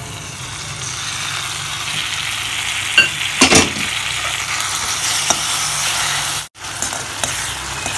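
Tomato purée sizzling as it fries in hot oil with onion masala in an iron kadhai, stirred with a steel slotted spoon that knocks and scrapes against the pan a few times about three to three and a half seconds in. The sound cuts out for an instant about six and a half seconds in.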